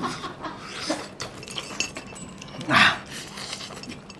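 People eating chicken off the bone with their hands: chewing and mouth noises with light clinks from a steel plate, and a short vocal sound about three seconds in.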